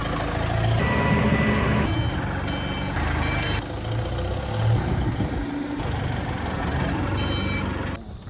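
Diesel engine of heavy loading machinery running, with a reversing alarm beeping at times. The sound changes abruptly several times.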